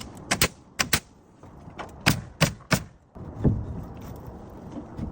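Nailing in wood framing: a run of sharp strikes, several in quick pairs, over the first three seconds, then a duller thud.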